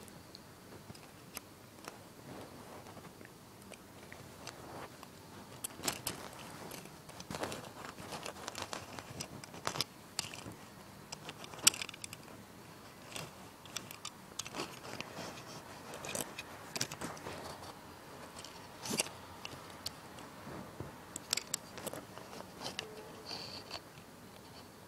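Handling noise from a small toy tank turned and moved by hand close to the microphone: irregular clicks, taps and light scrapes.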